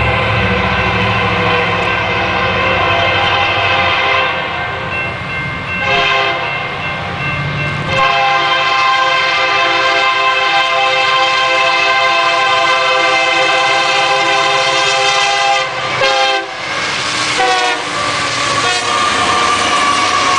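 Diesel freight locomotive's multi-chime air horn blowing long blasts over the rumble of the train. The chord bends in pitch around three-quarters of the way through as the locomotive passes.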